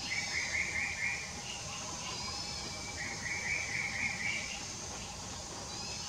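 Wild animal calls: two bouts of rapid trilled notes, each about a second long, with a thin higher note before each, over a faint steady background drone.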